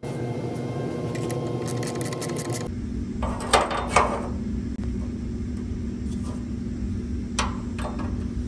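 Two sharp metal clinks about three and a half and four seconds in, with a fainter one later, as a short square steel tube bracket is handled against the truck's sheet-metal radiator support, over a steady low shop hum.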